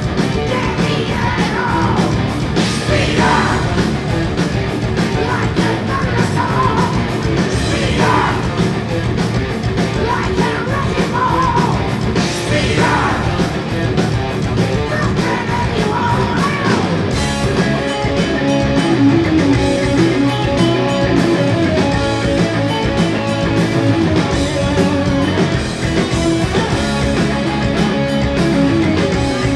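Heavy metal band playing live: lead vocal over distorted electric guitars, bass and drums. The singing stops a little over halfway through and the band carries on with a guitar-led instrumental passage.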